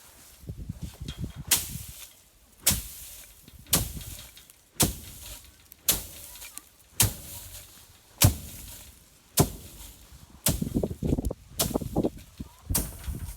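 Hard red winter wheat being threshed by hand: a swung tool strikes a pile of wheat on straw about once a second, each blow a sharp whack followed by rustling straw.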